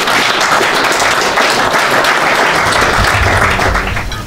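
Audience applauding at the end of a talk: dense, steady clapping from many hands.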